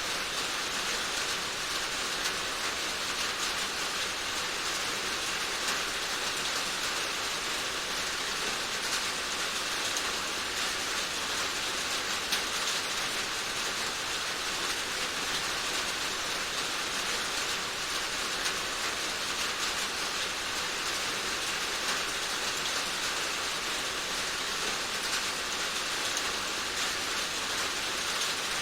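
Steady rain falling, an even hiss with fine scattered patter of drops.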